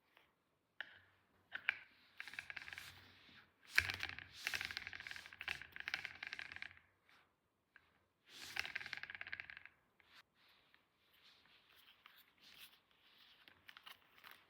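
Small plastic toy pieces and packaging being handled, rattling and crinkling in bursts. The longest burst runs from about two to seven seconds in and another comes around eight to ten seconds, with lighter clicks and rustles after.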